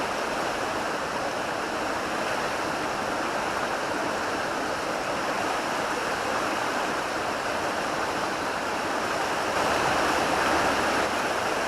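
Steady rush of fast-flowing river water, a little louder about ten seconds in.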